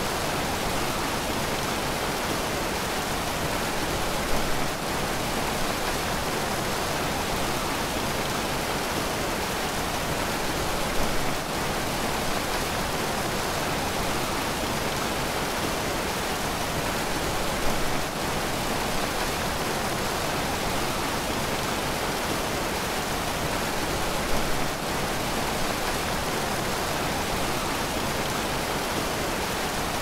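Steady rushing roar of a waterfall sound effect, with small swells in loudness about every seven seconds.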